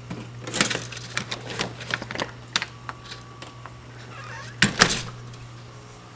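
A door fitted with window blinds being opened: irregular clicks and rattles, with a loud burst of rattling about four and a half seconds in.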